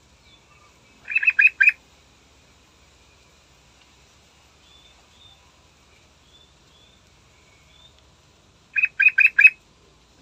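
Yellow-vented bulbul (trucukan) singing two short bursts of about four quick notes, about a second in and again near the end, with faint high chirps in between.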